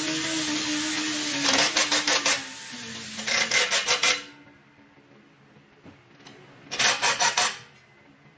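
Cordless impact wrench tightening the clamp nuts on a truck's exhaust stack: the motor runs with a wavering whine and breaks into short bursts of rapid hammering twice, stops about four seconds in, then gives one more brief hammering burst near the end.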